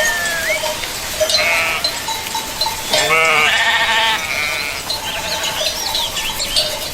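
Sheep bleating, with one loud, wavering bleat about three seconds in, and livestock bells ringing among the flock.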